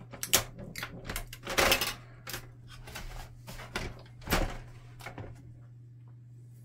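Plastic clicks, clacks and rustles from hands removing packing plastic from a laser printer, with louder scrapes about a second and a half in and again around four seconds, stopping near the end.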